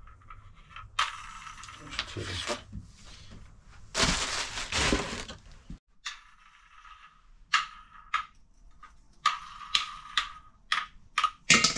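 A new faucet and its small plastic and rubber parts being handled and fitted together by hand: two stretches of rustling, the second louder and stopping abruptly, then a run of small clicks and taps.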